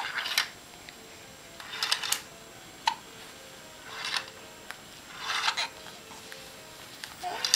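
A baby's crib mobile playing a soft lullaby melody of single held notes stepping up and down. The infant hiccups, a short sharp 'hic' about three times, with breathy rustling bursts every second or two.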